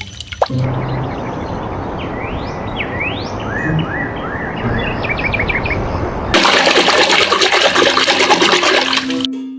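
Water running with a string of short, rising, bird-like chirps over it. About six seconds in, the water turns louder and hissier, then stops just before the end.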